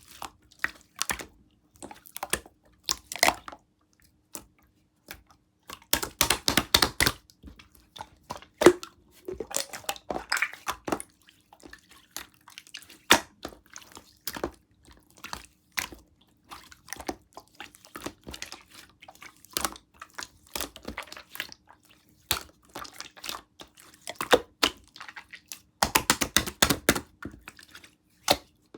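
Hands squishing and poking clear chisel-type slime, making sticky, wet clicks and pops. There are two spells of rapid clicking, about six seconds in and near the end.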